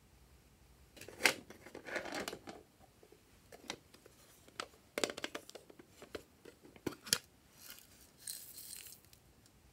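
Hard plastic pieces being handled over a tray, making scattered sharp clicks and taps with short crinkly rustles. Near the end comes a brief hissy patter of sequins tipped out of a small plastic cup.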